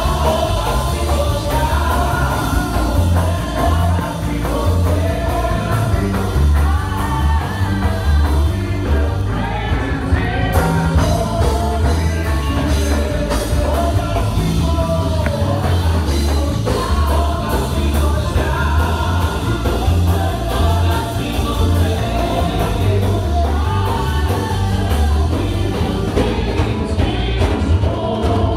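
Church worship music played loud through PA speakers: singing over a band with a heavy, pulsing bass.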